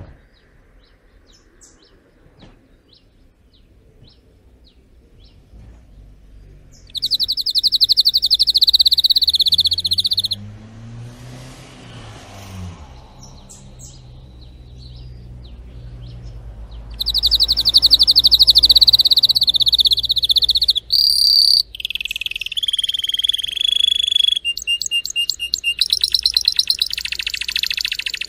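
Male canary singing: long, very rapid rolling trills, two stretches of them a few seconds apart, then a varied run of quicker trills and notes near the end. The first several seconds hold only faint, scattered chirps.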